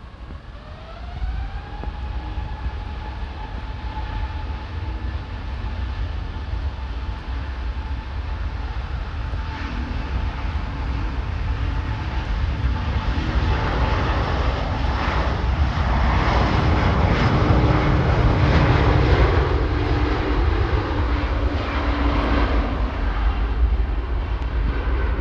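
Airbus A350-1000's Rolls-Royce Trent XWB turbofans spooling up for takeoff: a rising whine about a second in, then a jet roar with crackle that keeps building, loudest about two-thirds of the way through, as the aircraft rolls and lifts off.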